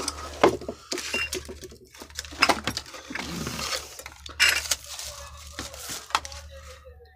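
Irregular knocks, clinks and rustling of household things being shifted about in a search, with a steady low hum underneath.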